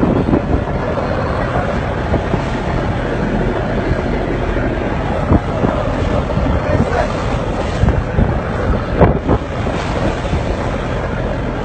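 Wind buffeting the microphone over a small boat running at sea, with waves around it. A few sharp knocks come a little after nine seconds in.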